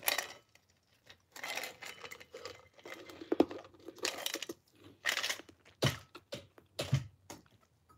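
A person crunching ice cubes between their teeth, a run of irregular, crisp crunches.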